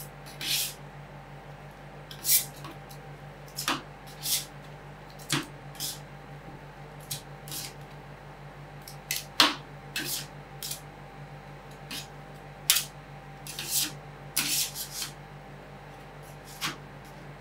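Metal spatulas scraping and tapping on a frozen rolled-ice-cream plate in short, irregular strokes, over a steady low hum.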